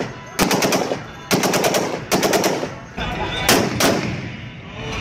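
Machine guns firing short bursts of a few rounds each, about one burst a second, with the reports echoing after each burst.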